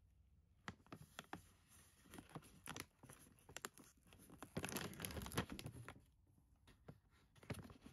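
Faint crinkling and crackling of a plastic cat-food pouch being handled and pulled open, with a denser spell of tearing and rustling about halfway through.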